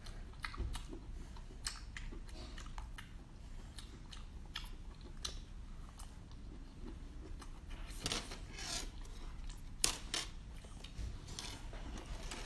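Close-miked eating sounds: chewing and lip-smacking in short wet clicks, with louder slurps from a large seashell about eight and ten seconds in.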